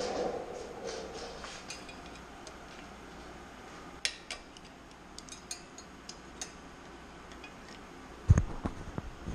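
A socket wrench working the exhaust fasteners on a ULPower UL350iS engine: a run of ratchet clicks at first, then scattered metallic clinks of the socket and tool. A loud knock comes near the end.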